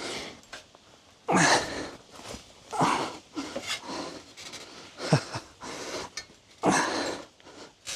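A man breathing hard and grunting with effort, short forceful exhalations about every second and a half, while straining to free a stuck trailer hitch.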